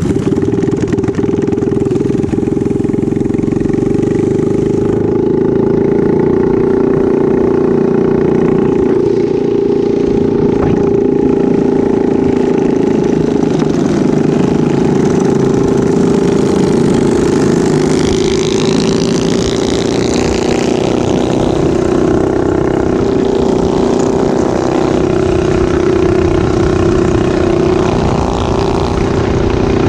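Minibike's small engine running steadily at cruising speed, heard from on the bike, with rough wind noise underneath.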